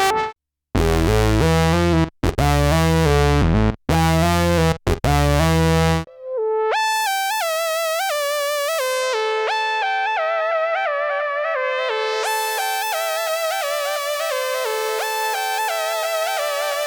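Roland SE-02 analog synthesizer playing demo sounds: for about the first six seconds a loud, deep bass sequence that breaks off several times, then a high-pitched melodic lead line of stepping notes.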